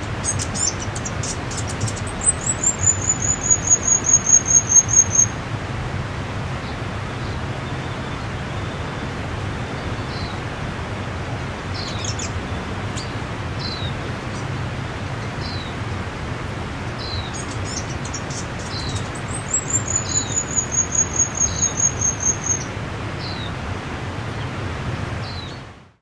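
Steady rush of river water with a songbird singing: twice a fast, high trill that slowly falls in pitch and lasts about three seconds, with scattered short high chirps between the trills.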